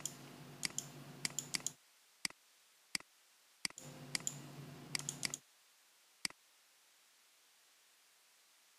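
Computer mouse clicking: about a dozen sharp clicks, some in quick pairs, over a faint electrical hum that comes and goes.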